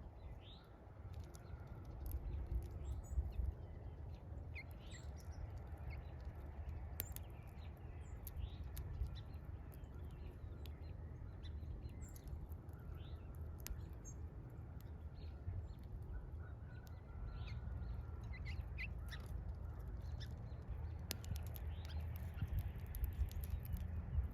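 Small birds chirping with many short, scattered chirps, mixed with occasional sharp clicks and a steady low rumble.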